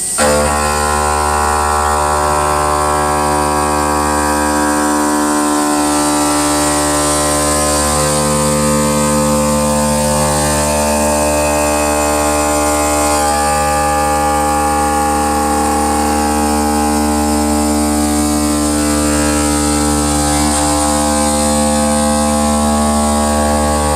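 CNC stone cutting and polishing machine running: a loud, steady machine hum made of several fixed tones, cutting in suddenly.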